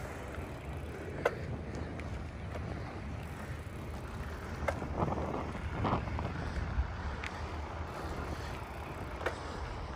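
Steady low wind rumble buffeting the microphone as it moves along the street, with a few light clicks or knocks scattered through it.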